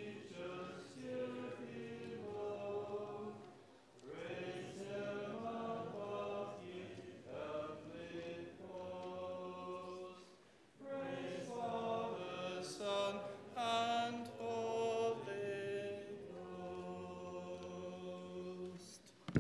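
A church congregation singing a hymn in unaccompanied four-part harmony, phrase by phrase, with short breaks about four and ten seconds in.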